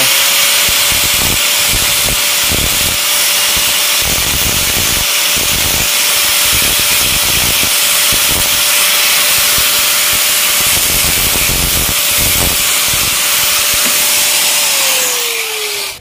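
Angle grinder running at a steady whine as its abrasive disc grinds down the teeth of a plastic washing-machine pulsator, trimming them to fit the gearbox shaft. Near the end it is switched off and the whine falls away as the disc spins down.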